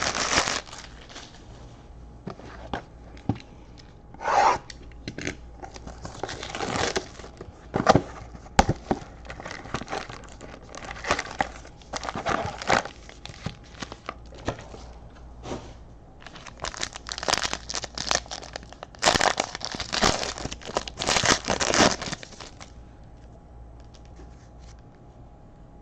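Foil trading-card pack wrappers being torn open and crinkled by hand. The rustling comes in irregular bursts, busiest in a stretch a little past the middle.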